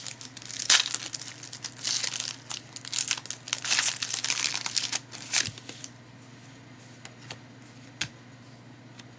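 Foil trading-card pack wrapper crinkling and tearing as it is ripped open by hand, in dense rustling bursts for about five seconds, then a few light clicks as it goes quiet.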